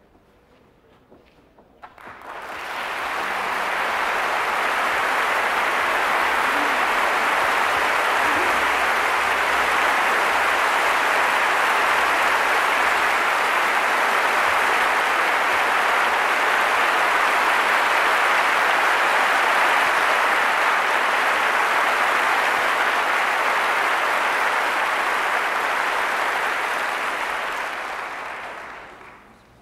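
Large concert-hall audience applauding steadily, greeting the soloist and conductor as they come onstage before a concerto. The applause swells in about two seconds in and fades away near the end.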